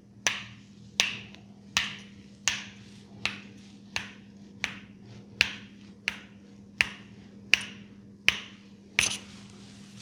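Finger snapping in a steady rhythm as a massage ASMR trigger: sharp snaps about one every three-quarters of a second, thirteen in all, with the last one near the end.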